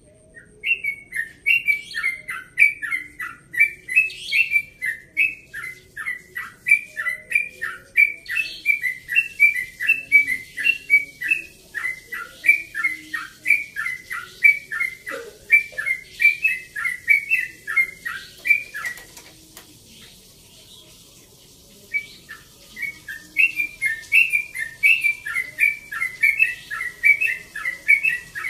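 Yellow-vented bulbul (trucukan) singing a long rapid run of short, clear, falling notes, about two a second. It breaks off for a few seconds about two-thirds of the way through, then starts again.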